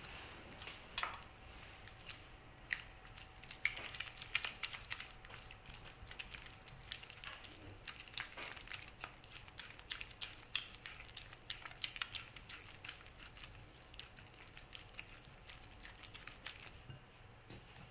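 Silicone spatula mixing egg yolk into creamed butter in a glass bowl: faint, irregular scrapes and soft clicks of the spatula against the glass, with wet squishing of the batter.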